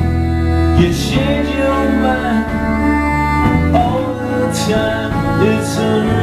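Live band playing an instrumental passage: a violin melody over electric guitars and a steady bass line, with a few sharp hits on top.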